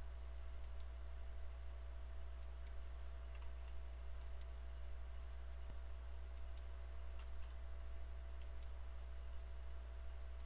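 Computer mouse clicking during screen recording: short sharp clicks, mostly in quick press-and-release pairs, every second or so, over a steady low hum.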